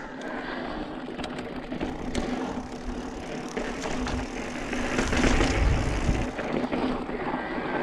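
Mountain bike rolling over bare slickrock sandstone: tyre noise with small clicks and rattles from the bike, a steady whine underneath, and a louder rush of noise about five seconds in.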